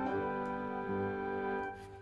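Background music of held keyboard-like chords that fades out near the end.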